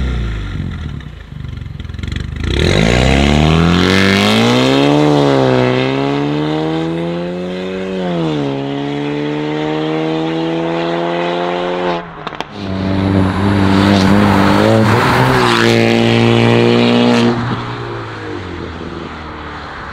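Land Rover Defender P300's 2.0-litre turbocharged four-cylinder, through a Fi valvetronic cat-back and 200-cell downpipe with the valves open, accelerating hard. The engine note falls from a rev, then climbs with two drops at upshifts, breaks off about twelve seconds in, runs on loud and steady, and fades near the end as the vehicle drives away.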